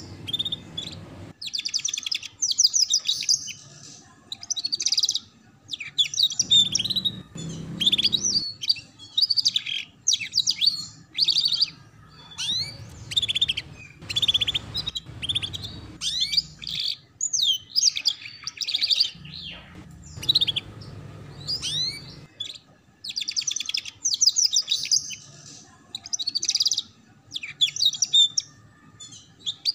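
Domestic canary singing in the fast, rippling 'ngeriwik' chatter: bursts of rapid trills and chirps, each a second or two long, with short pauses between. A faint low rumble runs under parts of it.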